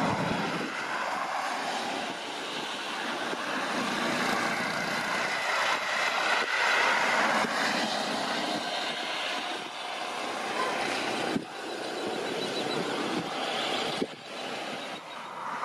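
Jet airliner engine noise: a continuous rushing roar that swells and eases, with two brief sudden drops in level near the end.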